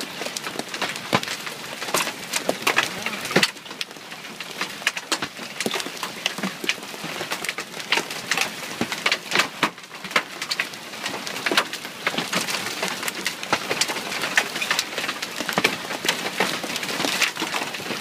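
Hailstones falling and striking, a dense irregular patter of sharp clicks and ticks over a steady hiss.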